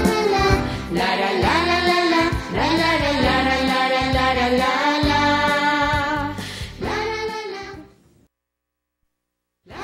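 Upbeat children's theme song: a woman and children singing together over music, fading out about eight seconds in, followed by a second and a half of dead silence before music starts again right at the end.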